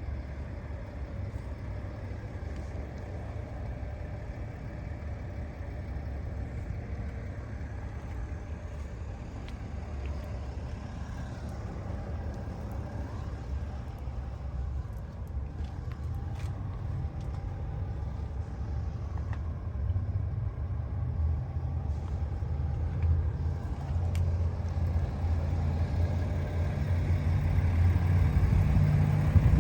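A motor vehicle's low, steady rumble, with its engine running, growing louder toward the end.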